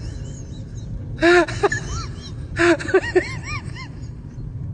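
Small dog barking: two sharp barks about a second and a half apart, each followed by a few quicker yaps, over a steady low hum.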